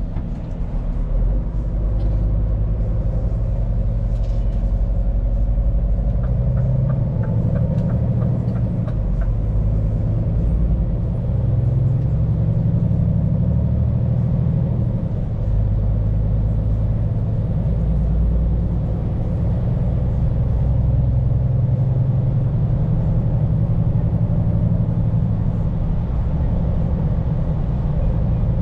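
Scania P410 truck's diesel engine running under way, heard from inside the cab: a steady low drone whose pitch shifts a few times. About six seconds in comes a few seconds of quick, regular ticking, roughly three a second.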